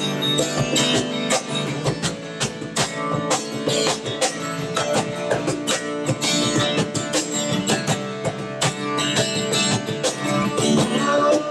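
Acoustic guitar strummed steadily, with a cajon beating the rhythm under it, in an instrumental passage of a worship song.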